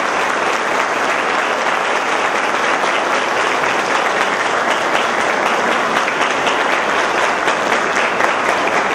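Applause from a crowd: many hands clapping at a steady level.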